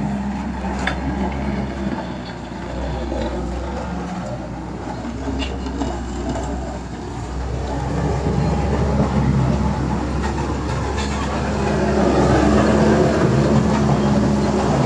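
Large motor grader's diesel engine running under load, a steady heavy rumble that grows louder in the second half.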